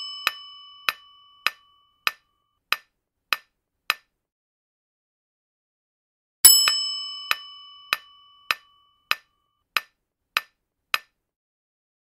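Quiz countdown-timer sound effect: evenly spaced clock-like ticks, a little under two a second. They pause for about two seconds, then a bright bell-like chime rings out about six and a half seconds in and the ticking starts again.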